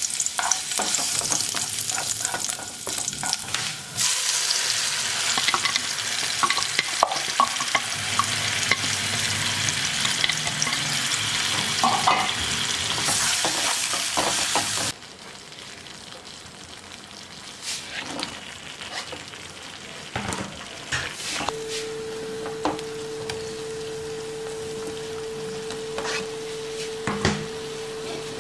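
Chopped garlic and then a tomato masala frying in oil in a nonstick wok, sizzling while it is stirred. The sizzle is loud for about the first half and then cuts to a quieter frying stage with scattered spatula clicks against the pan. A steady tone joins about three-quarters of the way in.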